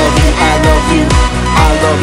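Pop love song playing, with a steady drum beat under a melodic line.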